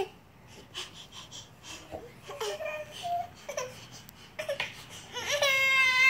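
Toddler making short fussy vocal sounds, then about five seconds in breaking into a long, loud wail: crying because he is stuck inside an overturned chair frame.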